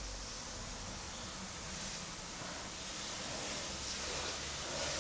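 Steady low background hiss with no distinct handling sounds or clicks.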